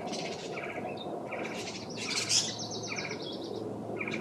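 Songbirds calling: short chirps repeat every half second or so, and a fast, rattling trill runs for about a second and a half from around two seconds in.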